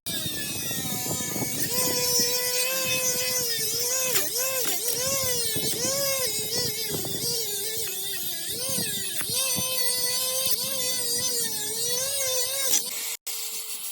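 Electric grinder's motor running against a knife blade: its steady whine drops in pitch again and again as the blade is pressed on, then comes back up, with a grinding hiss. Near the end it cuts off, and a steadier whine follows.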